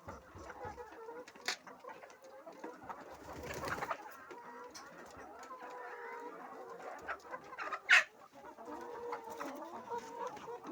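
A flock of laying hens clucking and calling softly and continuously. A rustling, scraping stretch comes about three to four seconds in. A sharp knock about eight seconds in is the loudest sound.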